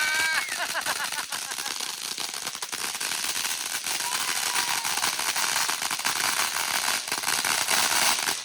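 Consumer firework crackling without a break, a dense stream of small rapid pops and crackles that stops abruptly at the end.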